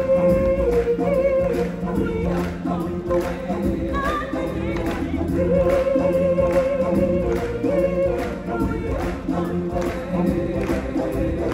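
A chorus of singers performing the finale song of a live stage musical, holding long notes over a steady beat.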